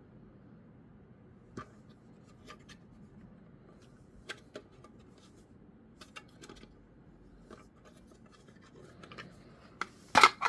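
Packaging being handled by hand: scattered light clicks, scrapes and rubs, growing busier toward the end, with one louder sharp clatter near the end.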